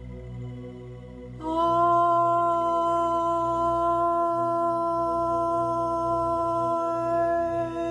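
A single voice toning one long, steady vowel for the throat chakra, starting about a second and a half in, over a low ambient drone.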